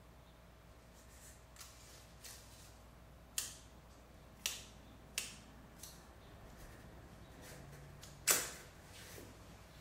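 Scattered sharp clicks and taps of small hand tools being handled, four louder ones, the loudest about eight seconds in.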